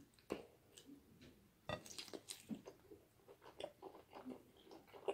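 Close-up mouth sounds of a person biting into and chewing fried chicken covered in cheese sauce: open-mouthed chewing with a string of short wet smacks, a burst of them around two seconds in.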